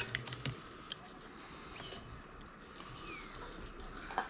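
A few light clicks and taps from a tape measure being handled against a metal awning bracket, several in the first half-second and single ones about a second in and near the end. Faint bird chirps in the background.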